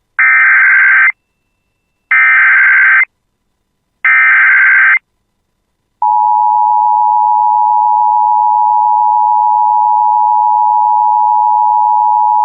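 Emergency Alert System signal: the SAME header's digital data squawk sent three times, each burst about a second long with a second's pause between, then the steady attention tone starting about six seconds in. The header codes announce a flash flood warning.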